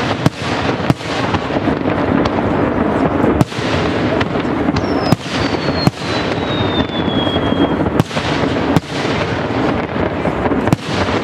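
Fireworks display: aerial shells bursting with about eight sharp bangs over continuous noise, and a high whistle gliding slowly down in pitch from about five seconds in.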